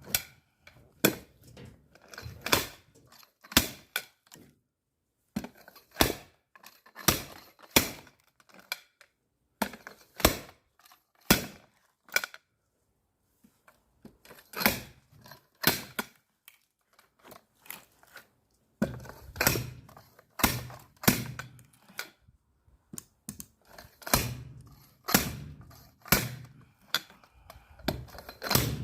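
Firewood being split with an axe: a string of sharp wooden thunks and cracks, roughly one every half second to second, with a short pause about halfway through.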